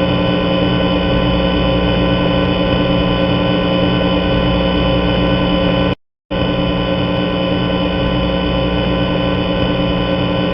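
A loud, steady electronic drone of many tones held at once, with no change in pitch. It cuts off about six seconds in and starts again a moment later.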